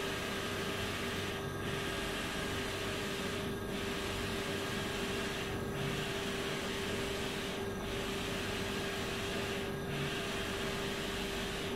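Wide-format inkjet printer running as it prints: a steady hum with one constant tone. The higher hiss dips briefly about every two seconds, in an even rhythm.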